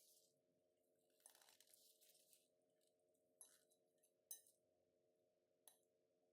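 Near silence, broken by a brief faint rustle and a few faint scattered clinks.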